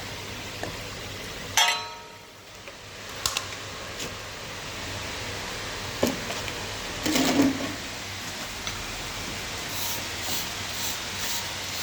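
Metal struck a few times over a steady hiss: one sharp clank about one and a half seconds in rings on briefly, followed by lighter knocks, a short scrape and a few light ticks near the end.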